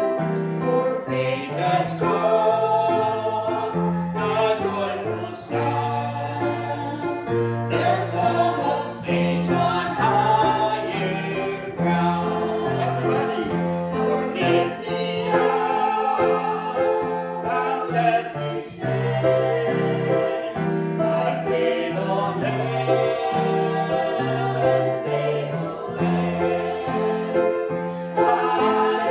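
Small group of men and women singing together, led by a woman singing at the piano, with grand piano accompaniment.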